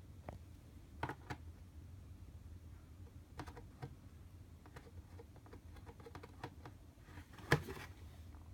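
Light, irregular taps and scratches on a cardboard box as it is handled, with a louder knock about seven and a half seconds in.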